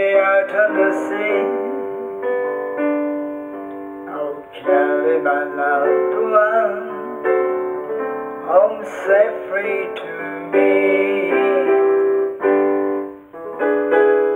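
Electronic keyboard played with a piano sound: an instrumental interlude of held chords under a melody line, each note struck and then fading.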